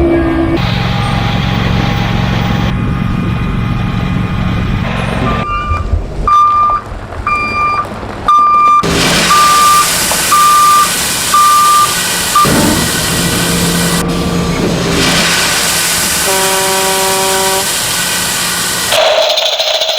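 Truck and excavator sound effects: an engine running, then a run of short beeps at one steady pitch like a reversing alarm, and a short horn-like blast later on.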